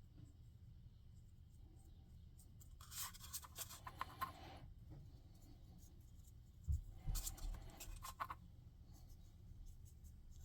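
Paintbrush bristles brushing wet paint onto a plastic miniature: two faint spells of scratchy brushing, about three and seven seconds in, each lasting over a second. A soft thump comes just before the second spell.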